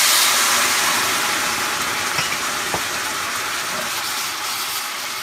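Orange juice poured into a hot stainless steel pan of fried dried chiles, hissing and sizzling loudly as it hits the hot metal and flashes into steam. The hiss starts sharply and slowly fades.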